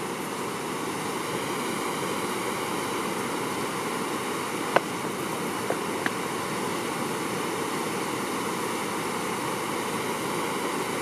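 Steady rushing of running water, with a couple of faint clicks about halfway through.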